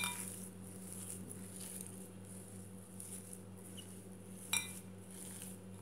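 A hand kneading mashed boiled potato with chopped onion, coriander and spices in a glass bowl: faint soft squishing, with a light clink against the bowl about four and a half seconds in, over a steady low hum.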